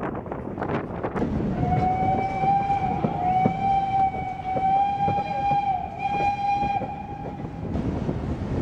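Steam whistle of an FS Gr. 625 steam locomotive blowing one long steady blast of about six seconds, starting a couple of seconds in, over the rumble and clicks of the moving train.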